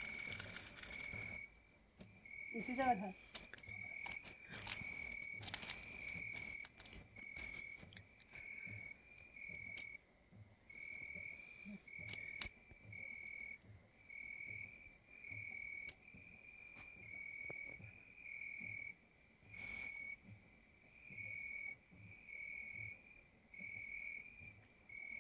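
Night insects calling faintly: a cricket-like chirp repeating about once a second over a steady, high-pitched insect chorus. A few soft knocks, and a short voice about three seconds in.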